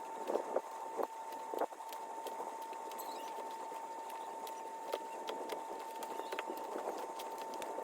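Close-up handling of an old leather baseball glove: a dense rustling patter with many small clicks, a few sharper ones in the first two seconds, over a steady high hum.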